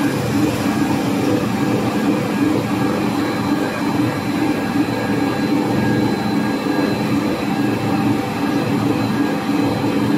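A five-extruder cast stretch film line running: a steady mechanical drone with a thin, high, steady whine over it.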